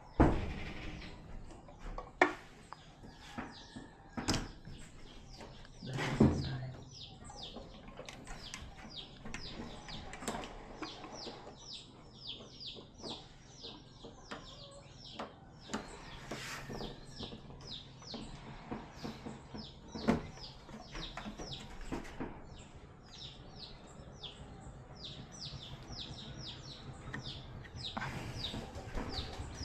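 Birds chirping in a long run of short, high, repeated calls, several a second, through the second half. A few sharp knocks and clicks stand out above them, the loudest near the start and one about two-thirds of the way in.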